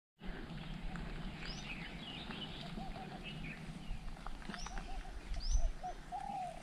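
Wild birds calling: scattered high chirps and several quick upward-sweeping whistles, with a lower run of short arched notes toward the end, over a steady low rumble.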